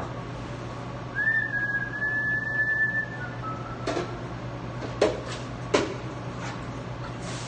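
A high, steady whistled note held for about two seconds, then a fainter, lower one. After it come several sharp knocks, the loudest two less than a second apart, over a steady low kitchen hum.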